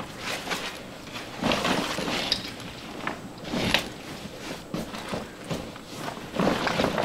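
Rustling and soft knocks from a fabric pet carrier being handled and pushed into place on a truck's back seat, with several sharper bumps spread through.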